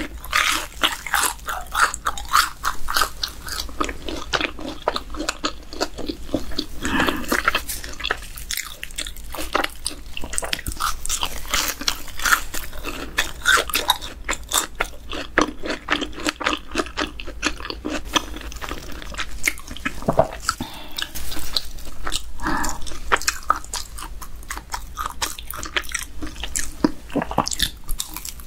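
Close-miked biting and chewing of crispy fried chicken: a continuous, irregular run of crunches.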